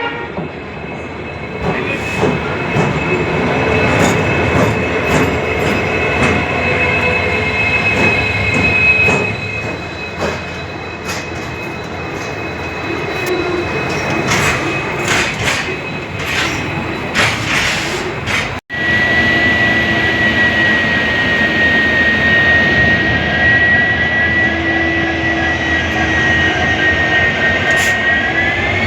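Indian Railways locomotive humming with a steady high whine, with sharp clicks of wheels over rail joints. After a brief break there is another steady whine that rises in pitch near the end.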